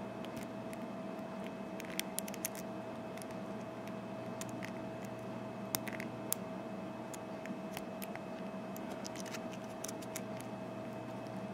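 Lock pick and tension tool working the pin stacks of an American 5200-series padlock's bump-stop cylinder: scattered, irregular light metallic clicks and ticks, with a few sharper clicks about two seconds in and again about six seconds in.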